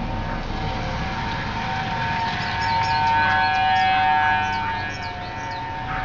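Several outdoor warning sirens, among them a Federal Signal Thunderbolt 1000T, sounding the steady 'alert' tone of a routine siren test. Two held tones of slightly different pitch overlap, swelling louder around the middle and easing off again.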